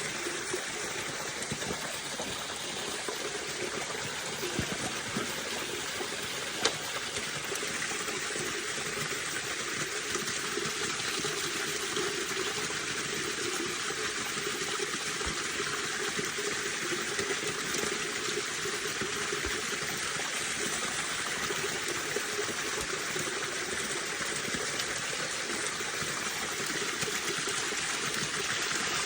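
Water running steadily into a freshly washed water-intake tank, with one brief sharp click about six and a half seconds in.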